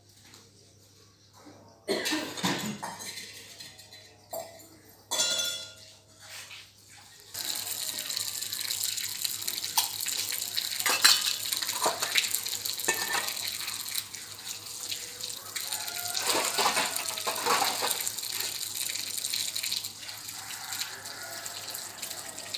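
Water running and splashing as steel dishes are washed by hand, with clinks of metal bowls and plates. The water starts about a third of the way in and keeps running steadily.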